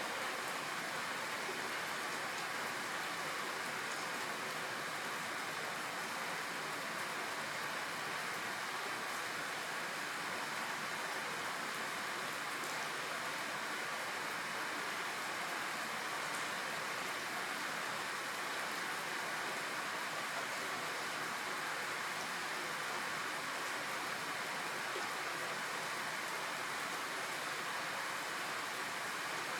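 Steady rainfall, a continuous even hiss of rain with faint scattered drops.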